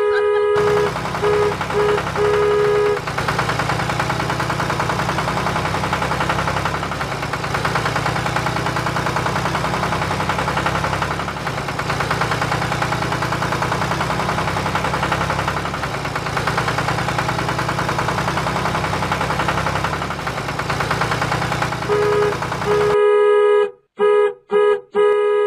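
Truck sound effects: a horn honks in several short blasts while a steady truck engine sound runs underneath. The engine then carries on alone through most of the stretch. Near the end the horn honks again in short, choppy blasts.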